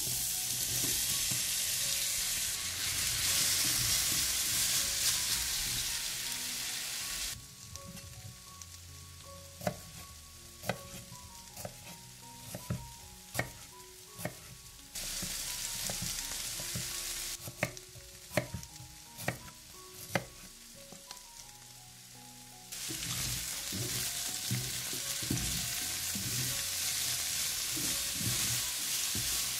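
Sliced onions sizzling in hot oil in a frying pan. After about seven seconds, a chef's knife cuts through carrot onto a wooden cutting board in separate sharp chops, roughly one a second. The sizzling comes back in the last seven seconds as the onions are stirred with a spatula, with faint background music throughout.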